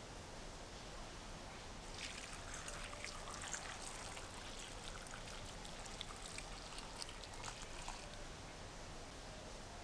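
Liquid being poured, a trickling splash that starts about two seconds in and stops about two seconds before the end.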